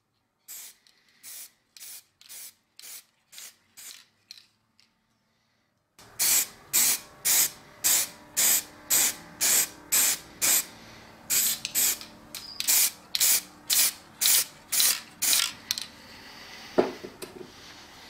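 Aerosol spray can of matte black paint hissing in short bursts, about three a second, with a brief silent break partway through. A single sharp knock comes near the end.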